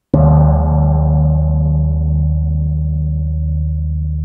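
Large orchestral gong struck once with a soft mallet, ringing on with a steady low tone and many overtones that slowly die away.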